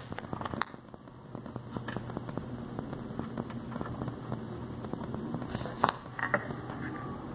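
Steady low hum with crackling and scattered small clicks from a car amplifier and speaker while its RCA input plug is handled, with a few sharper pops near the start and about six seconds in.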